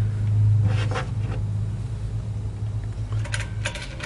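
Light metal clicks and scraping of a cable clamp being handled and fitted into a compressor's electrical box, a few about a second in and a quick run near the end, over a steady low hum.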